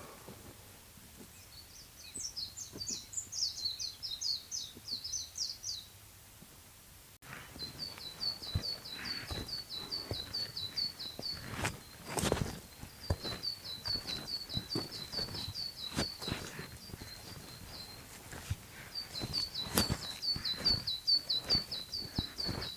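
Small songbirds singing: a quick run of high notes, then after a short break a long series of rapid, repeated high chirps. Scattered footsteps and knocks come from walking on a trail.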